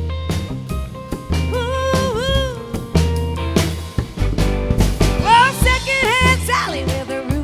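Live band playing an upbeat country song: drum kit keeping a steady beat under bass and guitar, with bending melodic lines from a voice or lead instrument.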